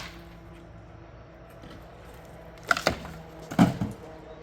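Wooden shed walls cracking and breaking apart as the shed is pulled down: two sharp, loud cracks about a second apart, over a faint steady hum.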